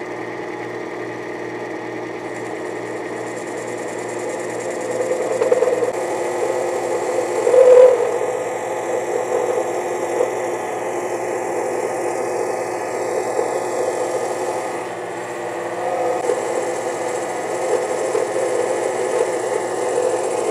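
Mini lathe running with a steady motor whine while a parting blade is fed into an aluminium workpiece. The cutting noise swells about five seconds in into a rough scraping, loudest briefly around eight seconds.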